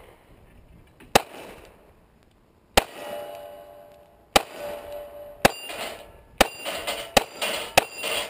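Sig Sauer P938 9mm pistol fired seven times at an uneven pace, with a metallic ringing after some of the shots.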